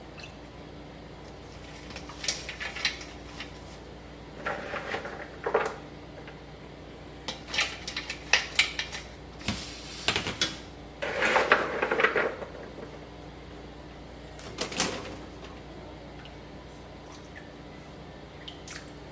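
Intermittent kitchen clatter of dishes and utensils being handled and set down, with a denser clattering spell about eleven seconds in, over a faint steady low hum.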